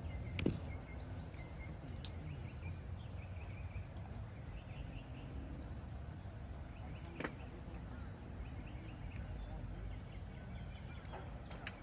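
Steady low rumble with a few sharp knocks or clicks, the loudest about half a second in and another about seven seconds in, and faint short high chirps.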